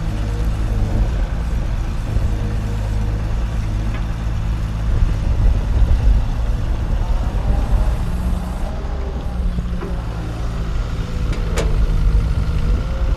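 A large engine running steadily with a low rumble, typical of a truck or heavy machine. There is one sharp click near the end.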